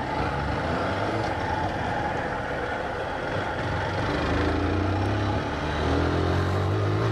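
Motorcycle engine heard from the rider's seat, running under steady throttle at first and then accelerating from about four seconds in, its pitch rising, with wind noise over it.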